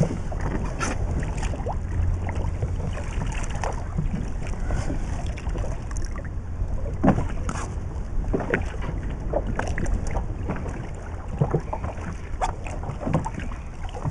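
Wind rumbling on the microphone aboard a small boat at sea, with scattered knocks and clatters from gear being handled on board.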